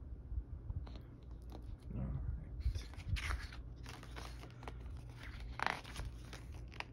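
Irregular rustling and crinkling of paper with light clicks and knocks as an album photobook is handled and opened.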